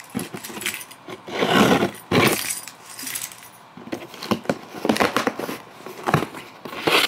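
Cardboard shipping box being pried and torn open by hand: irregular scrapes, rips and knocks, with a longer tearing scrape about a second and a half in.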